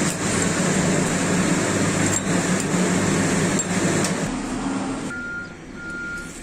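Stick (arc) welding: the arc crackles over a steady low hum and stops about four seconds in. A high beep then sounds in half-second pulses near the end.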